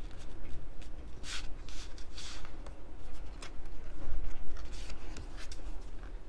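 Paper and card stock being handled on a tabletop: scattered short rustles and light rubs as a strip of designer paper is placed and pressed onto the inside of a card.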